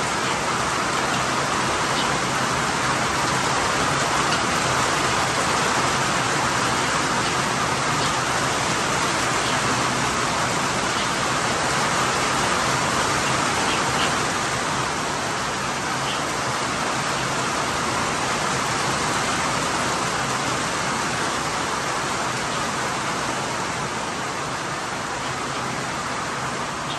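Steady rain shower falling on a barn's tin roof: a dense, even hiss with a few single drops ticking out now and then. It eases slightly toward the end.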